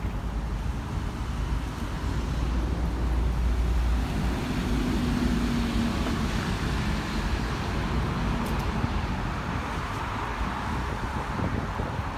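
Road traffic on a rain-wet city street: a steady hiss of tyres and engines with a low rumble, and a passing vehicle's engine hum from about four seconds in.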